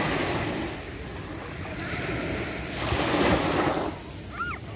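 Small sea waves breaking and washing up a sandy beach, in two surges: one at the start and a second, louder one about three seconds in.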